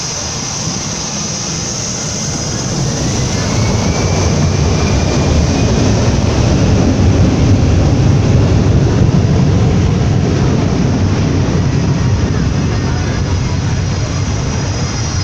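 A small airliner's engines running up to takeoff power at close range. The roar builds over a few seconds, peaks about midway, then eases slightly.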